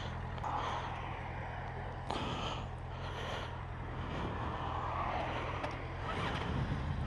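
Motorcycle engine idling steadily, with a few brief rushes of noise passing over it.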